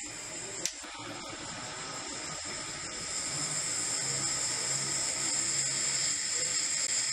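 Gas ring burner running on petrol-derived gas, its flame hissing steadily and growing louder about three seconds in. A single click just under a second in.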